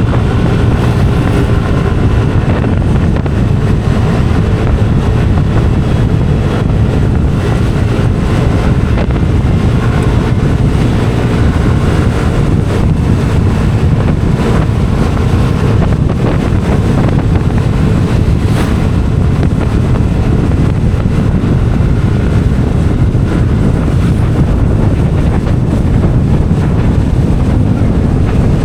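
Steady low rumble of a moving vehicle, with wind buffeting the microphone throughout.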